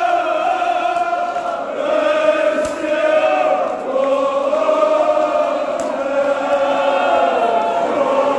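A group of men chanting a Kashmiri marsiya, a Shia mourning elegy, together in long drawn-out sung lines.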